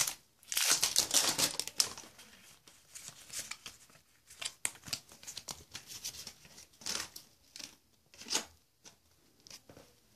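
Foil Pokémon booster pack wrapper being torn open and crinkled, loudest in the first two seconds, followed by lighter scattered rustles and slides of the wrapper and cards being handled.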